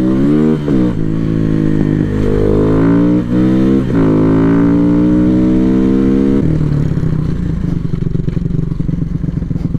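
Dirt bike engine accelerating up the lane, its pitch climbing in each gear and dropping at the shifts about two, three and four seconds in. About six and a half seconds in the revs fall away and the engine settles into a low, lumpy idle.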